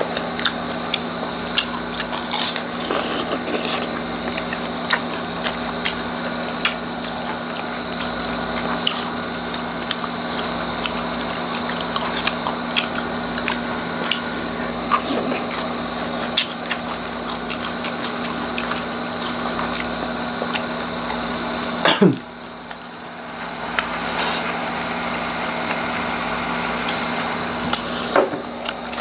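Crisp crackling and crunching as pieces of chicharong bulaklak (deep-fried pork mesentery) are broken apart and chewed, with many short sharp cracks over a steady low hum. About three-quarters of the way through, a loud sound sweeps down in pitch and the sound briefly drops.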